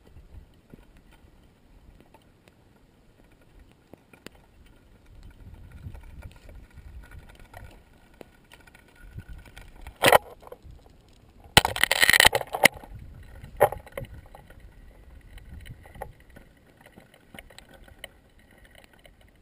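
Molten pahoehoe lava toe pushing over cooled crust, its glassy skin crackling with scattered small ticks over a low rumble. Louder crackling bursts come about ten seconds in, and a longer one about two seconds later.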